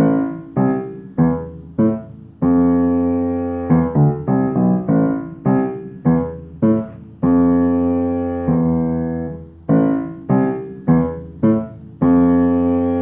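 Piano being played: a run of separately struck chords, most short and quickly damped, with a few held and left ringing for a second or more.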